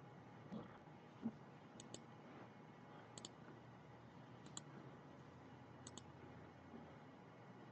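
Faint computer mouse clicks in quick pairs, about every 1.3 seconds, over low room noise. There are two soft knocks in the first second and a half.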